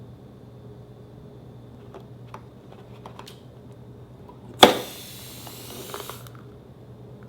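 Slime being handled: a few light clicks, then about halfway through a sudden loud pop followed by about a second and a half of crackling.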